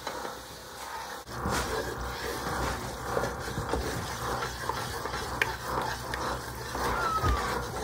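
Wooden spatula stirring and scraping thickening gravy in a metal saucepan, with a low steady hum starting after a click about a second in.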